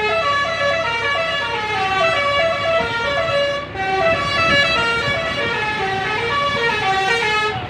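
Bus telolet horn, a multi-trumpet musical air horn, playing a melody of stepping notes in chords, with a short break about halfway through.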